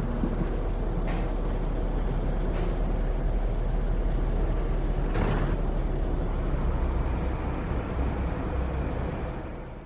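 Truck engine running with a steady low rumble, with short hisses about a second and two and a half seconds in and a longer, louder hiss about five seconds in. The sound fades away near the end.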